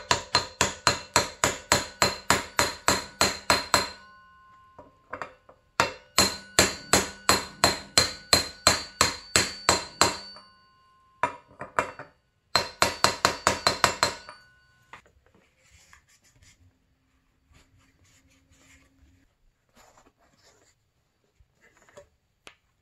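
Hammer striking a bearing driver, tapping a wheel bearing down into a heated dirt-bike rear hub to seat it. There are three runs of quick blows, about five a second, each ringing like metal, with short pauses between runs. The hammering stops about 14 seconds in, leaving only faint handling sounds.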